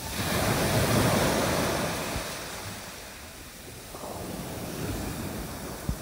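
Black Sea surf washing up the beach. One wave surges in at the start, is loudest about a second in and fades away, and a second, smaller wash comes in about four seconds in.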